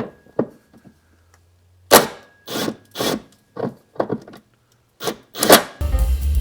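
A series of short rasping strokes, about seven of them at uneven spacing, from a tool running in the rear shock's mounting bolts. Music with drums comes in near the end.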